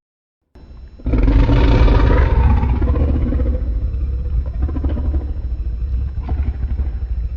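Fan-made Godzilla-style monster roar sound effect: a low rumble begins about half a second in, then a loud roar breaks in at about a second, its pitch sliding downward as it tails off over several seconds above a heavy bass rumble.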